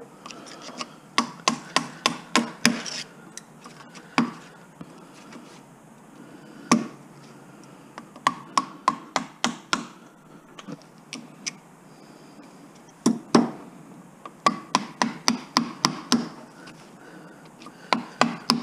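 Hammer strikes knocking copper windings out of an electric motor stator. The blows come in quick runs of several, with pauses between.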